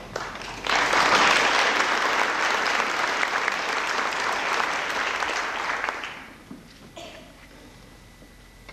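Congregation applauding after a speaker finishes. The clapping starts just under a second in, holds steady for about five seconds, then dies away.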